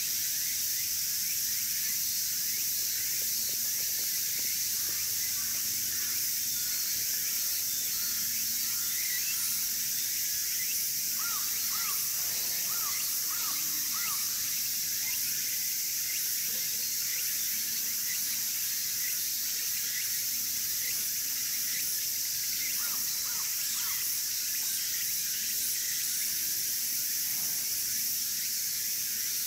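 Insects droning steadily at a high pitch, with a bird calling in short series of chirps, about five in a row around the middle and three more later on.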